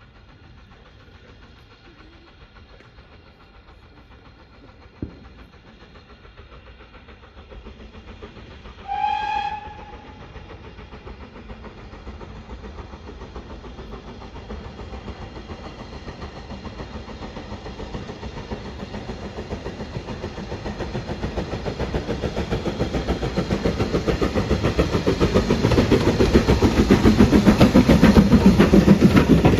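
BR Standard Class 4MT 2-6-4 tank steam locomotive approaching on the line. It gives one short steam-whistle blast about a third of the way in. Then its running sound, with a fast rhythmic beat, grows steadily louder as it and its coaches draw near and pass close.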